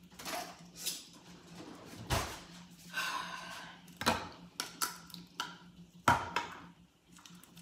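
A string of sharp metallic clicks and clatters: utensils rattling in a kitchen drawer, then a manual can opener being fitted onto a tuna can. The loudest knocks come about four and six seconds in.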